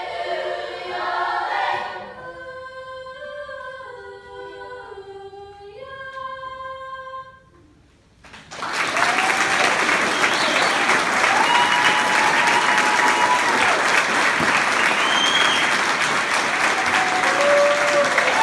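Youth choir singing the end of a song, dropping from full voice to soft held notes that die away. After a brief pause about eight seconds in, the audience applauds loudly, with whoops and whistles.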